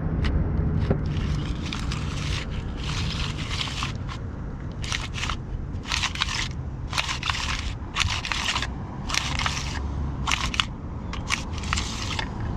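Ratchet wrench clicking in short bursts, roughly one a second, as a bolt is run down on a small generator's recoil starter.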